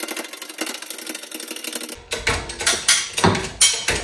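Fast, even clicking for about two seconds. Then it cuts to louder background music with a beat and bass.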